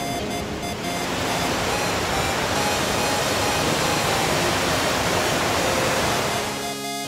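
Waterfall pouring, a steady rush of water noise, with electronic background music underneath; the water noise fades near the end as the music takes over.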